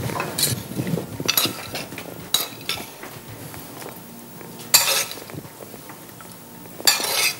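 A metal spoon clinking and scraping in a frying pan as food is served out onto a plate: a few light clinks, then two louder scrapes about five seconds in and near the end.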